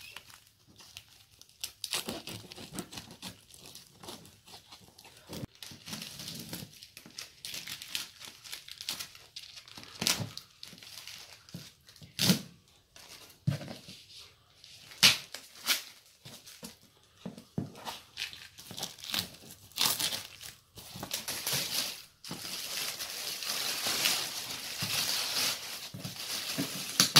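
Packing tape and plastic wrapping being ripped off a parcel by hand: a series of sharp, uneven tearing rips. Near the end comes a denser stretch of plastic crinkling as the wrap is pulled off a cardboard box.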